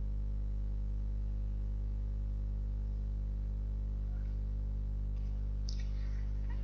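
Steady low electrical hum with a buzz of overtones from the recording chain, with no speech. A faint click comes near the end.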